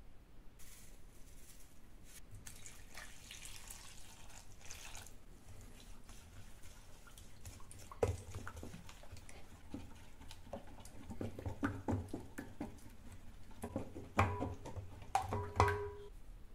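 Water poured into a stainless steel bowl of oat flour and egg, a steady splashing pour for about four seconds. Then a wooden spatula stirs the batter, knocking and scraping against the sides of the bowl, which rings briefly near the end.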